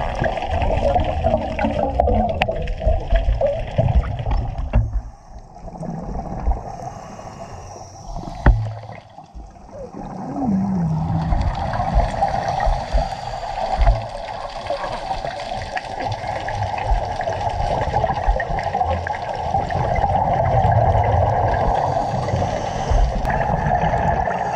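Water gurgling and rushing against an underwater camera housing, with the bubbling of a diver's air, dropping quieter for a few seconds near the middle.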